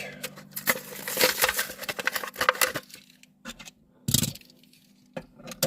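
Hot Wheels blister pack being worked open: a dense run of plastic crackling and clicking for about three seconds, then a few separate clicks and a louder knock about four seconds in.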